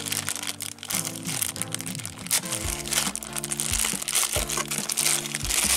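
Thin clear plastic bag crinkling and rustling as hands pull and tear it open, over background music.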